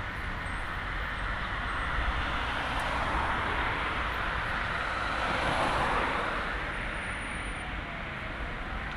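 Articulated tram rolling along its track: a steady noise of wheels on rails that swells about five seconds in, mixed with passing road traffic.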